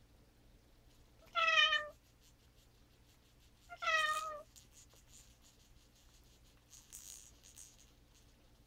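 Adult female cat meowing twice, two short calls about two and a half seconds apart, each falling slightly in pitch. A faint rustle follows near the end.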